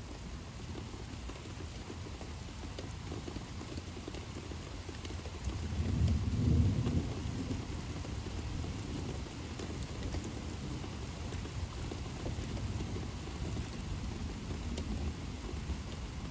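Steady rain falling, with a roll of thunder that builds about five seconds in, is loudest a second or so later, then eases off into a low rumble.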